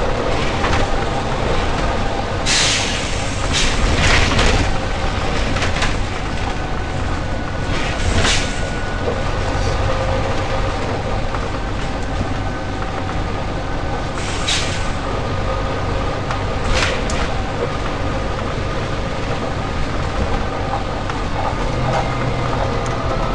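Volvo B9TL double-decker bus's six-cylinder diesel running with a steady rumble, broken by about six short, sharp hisses of air from its air system.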